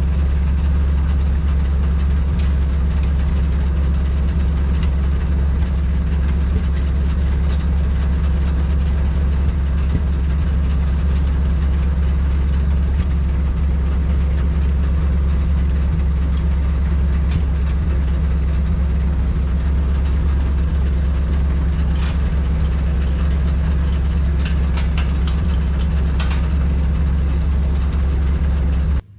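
Log truck's engine idling steadily with a low, even drone.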